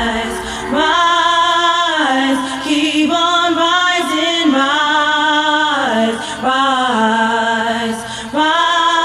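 Music: a sung vocal holding long notes over sparse backing with no drumbeat, a breakdown in a house track.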